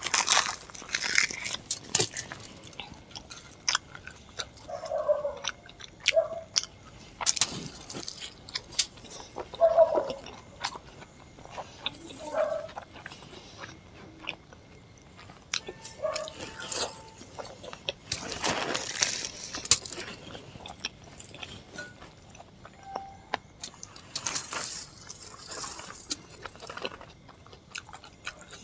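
Close-miked eating by hand: chewing and mouth smacks, with fingers tearing soft luchi and squishing through chicken curry, heard as many short clicks and brief wet bursts.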